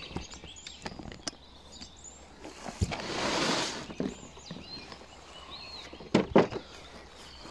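Two sharp plastic knocks near the end as the Makita Makpac tool case is opened and handled, after a second-long burst of noise about three seconds in. Birds chirp faintly in the background.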